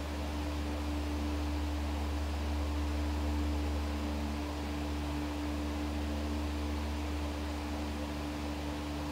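Steady low hum and hiss with a faint constant tone: room tone.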